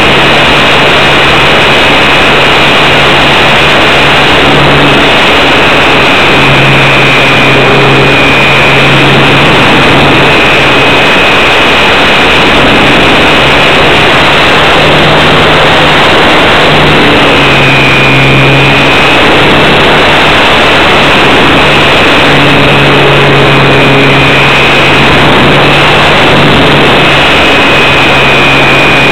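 Electric motor and propeller of a HobbyZone Super Cub RC plane in flight, heard from a camera on the airframe: a loud steady whine over rushing air, its pitch stepping up and down a few times.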